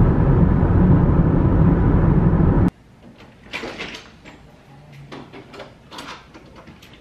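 Steady road and engine noise heard from inside a car cabin at highway speed, which cuts off suddenly about two and a half seconds in. A hotel room door follows: a few sharp clicks and knocks from its keycard lock and handle as it is opened.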